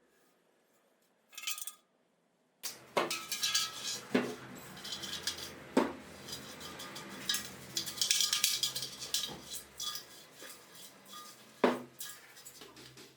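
Metal parts and tools clinking, scraping and knocking as they are handled, with a brief clatter about a second and a half in. The busy handling starts nearly three seconds in and carries on, with a few sharp louder knocks.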